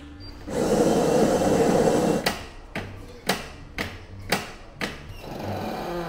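A Saeco Aulika bean-to-cup espresso machine making a coffee. Its grinder runs loudly for about a second and a half, then comes a run of six sharp squeaky strokes about two a second, and near the end a lower steady running of the brewing pump. The machine is squeaking a little.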